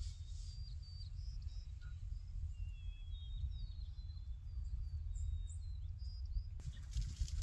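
Wind rumbling on the microphone in an open field, with faint scattered chirps of small birds. About six and a half seconds in, a horse's hoofbeats start to come in as it approaches across the pasture.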